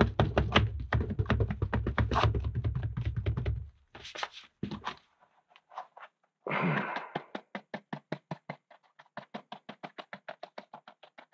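Rapid, even tapping on a mold full of wet concrete, about six taps a second, in two runs with a pause between; the second run is lighter and fades. The tapping settles the concrete and brings trapped air out.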